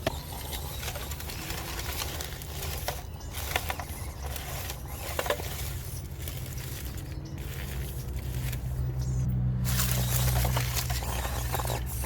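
Small RC crawler driving over rough ground: a low motor and gear hum that grows louder about nine seconds in, with a few scrapes and clicks as its tyres climb over the obstacles.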